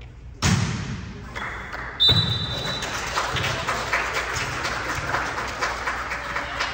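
Heavy thuds echoing in a large hall, one about half a second in and another about two seconds in, then a steady clatter of many small taps and knocks.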